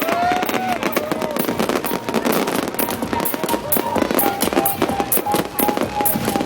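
A fireworks display going off in a dense, rapid run of cracks and bangs, with music playing underneath.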